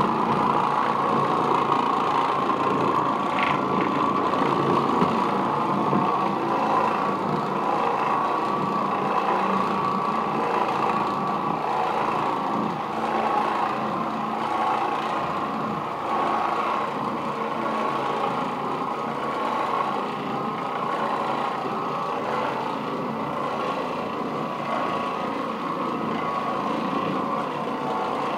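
Oreck Orbiter orbital floor machine running steadily, its motor humming as the bonnet pad scrubs across the carpet.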